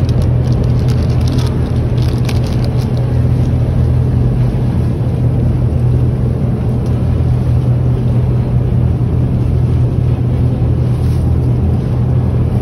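Boat motor running at a steady speed, a constant low drone, with water rushing and splashing alongside the hull.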